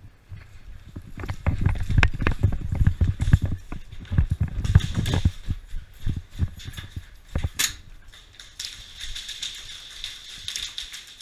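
Irregular heavy footfalls and thumps as a person moves quickly over the ground, with gear and clothing jostling against the microphone. A softer steady hiss takes over near the end.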